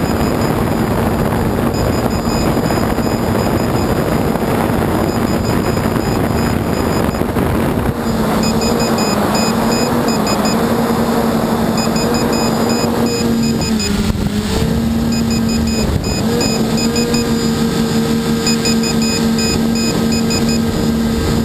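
Multicopter's electric motors and propellers droning steadily, picked up by the on-board camera, the hum wavering slightly in pitch as the throttle changes. Wind rushes over the microphone, easing about two-thirds of the way through.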